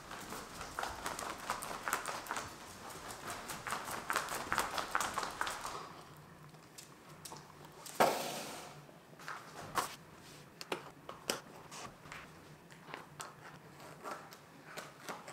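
Quick, dense tapping and scuffing of footsteps on a tile floor, then sparse clicks and rustling as rubber booties are fitted onto a dog's paws, with one loud rustle about eight seconds in.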